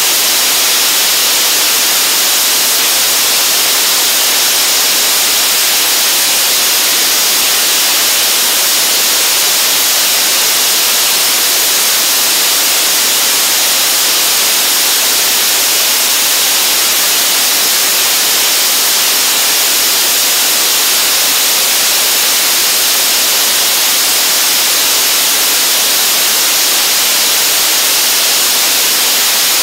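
Five 440 N bipropellant liquid apogee motor engines firing together on a test stand: a steady, high hiss.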